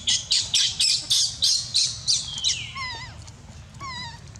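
Baby macaque screaming: a quick run of short, shrill squeals, about three a second, then a falling squeal and softer whimpering cries.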